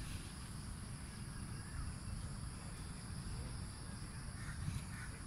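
Outdoor ambience: a steady high insect drone over a low wind rumble, with two faint short bird calls about four and a half seconds in.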